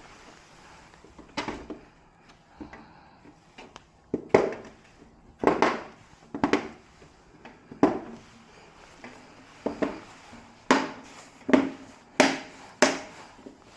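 A series of about a dozen irregular knocks and clunks, as of objects being handled or set down, coming more often in the second half.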